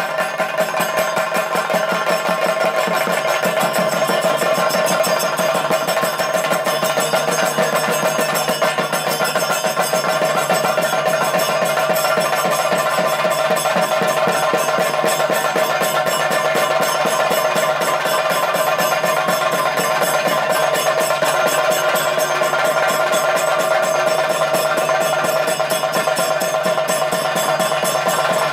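Ritual drumming accompanying a Bhadrakali Thira dance: fast, continuous chenda drum strokes over a steady held pitched tone, unbroken throughout.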